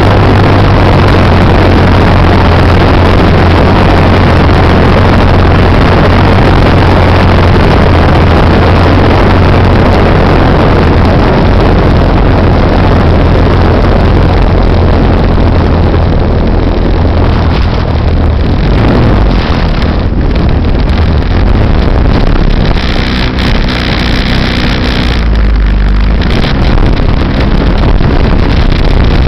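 RC Laser 200 model airplane's engine heard from a camera on board, running hard under heavy wind rush on the microphone. It eases off past the middle, runs as a steadier, quieter hum for a few seconds as the plane comes down over the field, and the rushing noise rises again near the end.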